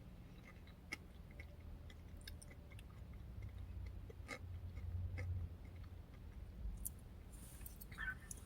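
Faint chewing of a mouthful of yogurt and granola parfait, with scattered small clicks.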